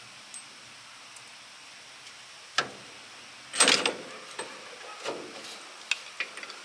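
Metal tools and parts clanking as a shock absorber is worked toward its mount with a pry bar. A sharp click about two and a half seconds in is followed by a louder scrape and clank, then a few light taps.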